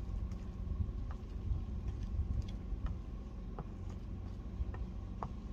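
Wind buffeting the microphone, a gusting low rumble, under a faint steady high hum. Scattered light clicks come from a spoon working a flour mixture in a stainless steel mixing bowl.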